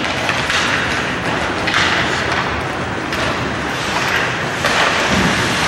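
Ice hockey play in a rink: skate blades scraping the ice in hissing surges every second or so, with thuds against the boards.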